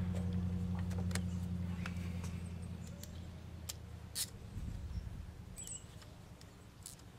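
A distant motor's low, steady hum, fading away over the first four or five seconds, with scattered light clicks and clinks of small metal outboard parts being handled.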